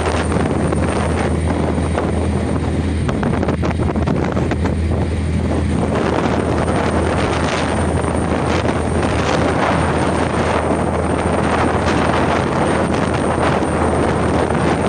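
Steady low engine hum of a boat under loud, even wind noise buffeting the microphone and rushing water.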